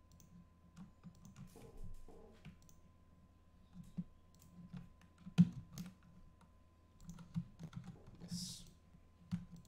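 Computer keyboard keys and mouse buttons clicking at an irregular pace, the loudest click about halfway through.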